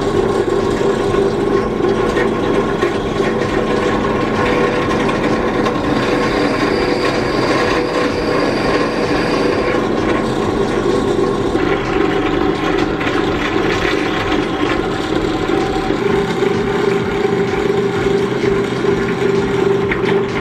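A woodworking power tool running steadily, its tone shifting slightly about halfway through.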